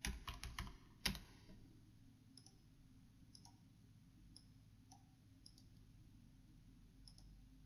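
Computer keyboard and mouse clicks: a quick run of key taps in the first second and one sharper click about a second in, then only faint ticks about every half second.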